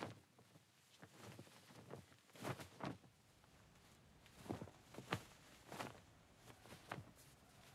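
Faint, slow footsteps, about eight uneven steps, the loudest about five seconds in.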